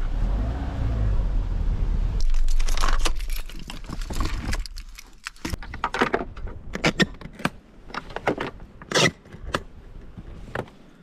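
A run of clicks, knocks and rattles from the latches, straps and lid of a hard-shell cargo case on a car's roof rack being handled, starting about two seconds in. Wind blows on the microphone before the clicks begin.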